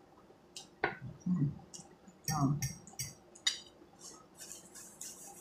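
Close-miked eating sounds of a person chewing an omelette: wet mouth clicks and smacks scattered throughout, with two short hums about a second and two and a half seconds in.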